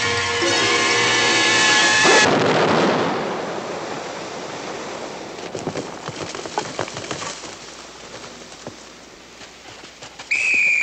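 Film music cuts off about 2 s in to a sudden crashing rumble of a load of coconuts falling and thudding onto sandy ground, fading out over several seconds with scattered knocks as the last ones drop. A brief high-pitched falling call near the end.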